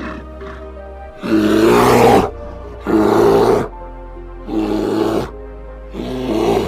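An animal roaring four times, each rough call under a second long and about a second apart, over background music.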